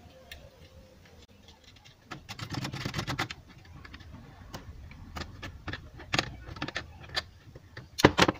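Hands handling wires and pushing a wire plug connector back into place inside a metal amplifier chassis. About two seconds in, the wires rustle for about a second; then come scattered clicks and taps, with a sharp pair of clicks near the end.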